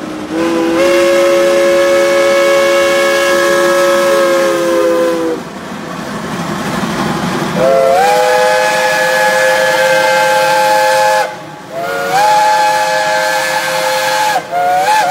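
Geared steam locomotives' whistles blowing long, steady blasts of several notes together: one of about four seconds, then, after a few seconds of rushing steam, a second and third blast pitched higher than the first, with a fourth starting near the end.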